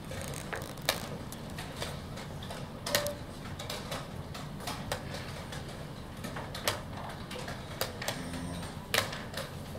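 Wooden chess pieces clacking down on the board and chess clock buttons being pressed during a fast blitz game: a sharp click every second or two, with fainter ticks between, over a steady low room hum.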